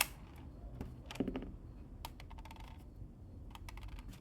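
Small metal bolts clicking and clinking as they are handled and set down on a digital scale, a scattering of light taps over the whole stretch.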